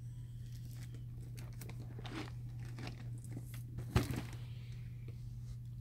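Faint crinkling and rustling of a shrink-wrapped plastic model kit box being handled, with a single sharp knock about four seconds in, over a steady low hum.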